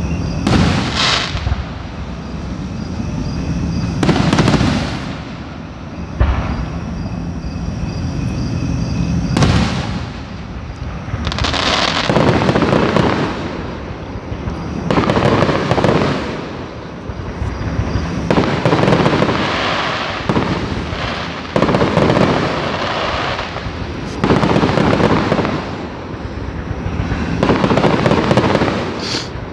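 Aerial fireworks shells bursting one after another, a sudden loud bang every one to three seconds, with a continuous crackling wash between the bangs.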